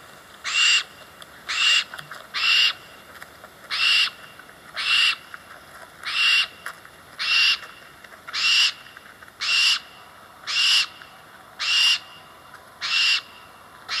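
Barn owl giving a series of short, harsh, hissing screeches, about one a second.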